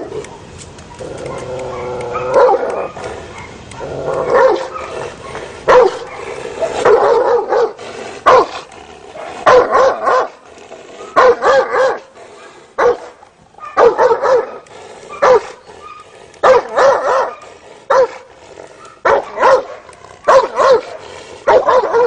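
Guard dog behind a gate barking again and again, about once a second, at a stranger reaching toward it: defensive barking that refuses his approach.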